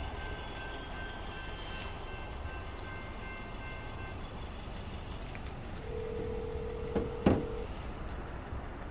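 Railroad grade crossing bell ringing over a low, steady rumble, stopping about four seconds in. Near the end a single held tone lasts almost two seconds, with two sharp knocks in the middle of it.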